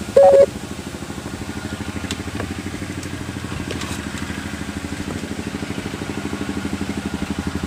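A small engine idling steadily, with an even, fast pulse. A short loud tone sounds about a quarter second in.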